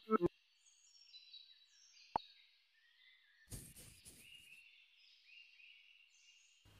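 Faint bird chirping in the background, many short quick chirps. A couple of short knocks right at the start, a sharp click about two seconds in, and a brief rustle about three and a half seconds in stand out over it.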